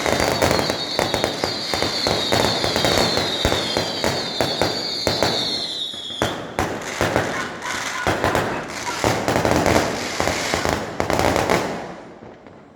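Fireworks and firecrackers going off in a rapid, continuous string of loud bangs and crackles, with a high whistle that slides slowly lower over the first six seconds. The bangs die away about twelve seconds in.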